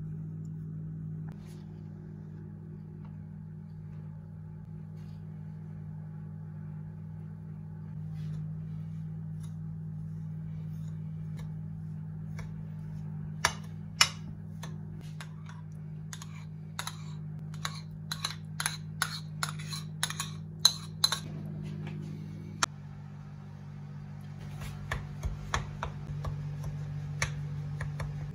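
Metal spoon stirring biscuit crumbs in a ceramic bowl, clinking and tapping against the bowl in a quick run of sharp clicks about halfway through and again near the end. A steady low hum underlies it.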